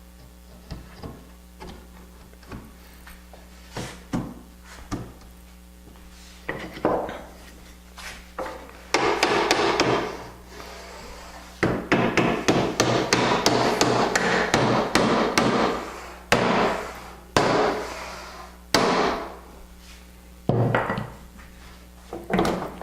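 Hammer blows on wood driving doweled boards together to close a long edge joint: scattered single taps at first, then two long runs of rapid strikes, then a few separate heavier knocks near the end.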